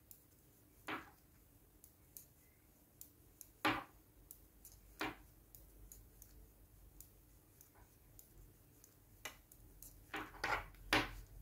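Straight metal knitting needles clicking as stitches are knitted, with now and then a sharper knock of a needle against the wooden table. The taps are scattered and sparse, then come closer together near the end.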